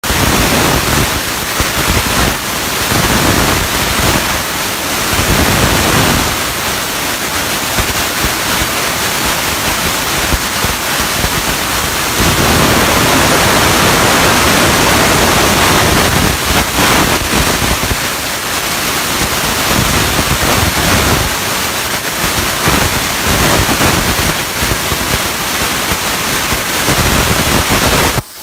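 CNC plasma cutter's torch cutting metal sheet: a loud, continuous hissing rush of the plasma arc that varies a little in strength as the cut goes on.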